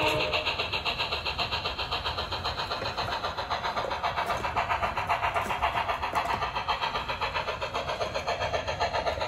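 HO scale steam locomotive's sound system chuffing at a quick, even beat as the engine pulls its freight train.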